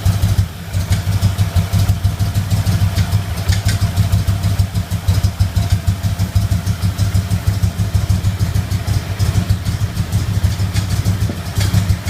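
Engine idling with a popping noise at the passenger-side lower intake manifold: many short sharp pops over a steady, pulsing idle.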